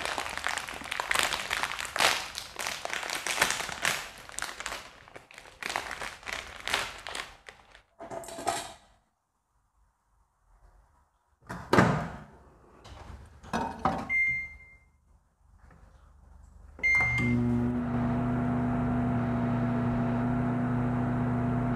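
A microwave oven being set going: a few thuds as the door is handled, two short single keypad beeps a few seconds apart, then the oven starts running with a steady low hum. Before that come clattering and rustling handling noises.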